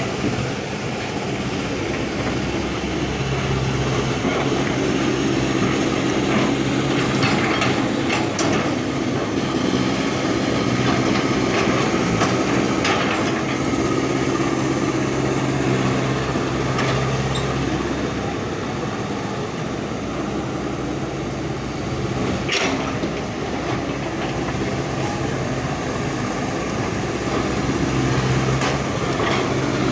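Excavator's diesel engine running steadily under load, with the scraping and metal clanks of a ripper bucket working the ground. One sharp knock about three-quarters of the way through.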